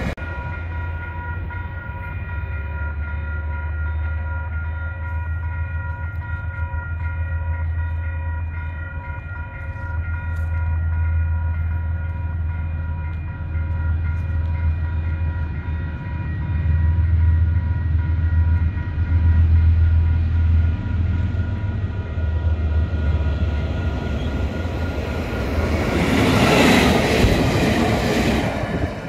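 KiwiRail DXC-class diesel-electric locomotives approaching and then passing close by. A deep engine rumble grows louder and peaks in a loud rush of noise near the end. Level-crossing alarm bells ring steadily throughout.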